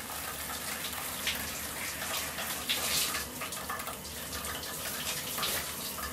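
Shower running, its spray falling onto a person's head and hair: a steady hiss of water with a few louder splashes.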